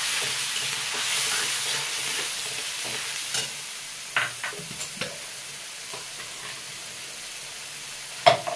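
Wet masala paste of ginger, garlic, tomato and chilli sizzling as it fries in a metal kadai, the sizzle dying down over the first few seconds. A metal spatula stirs it, scraping and tapping the pan a handful of times, with one louder clank near the end.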